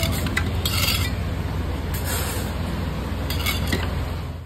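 A long metal knife and a steel skewer scrape and clink against a steel pot of cooked meat, in several short strokes, over a steady low hum.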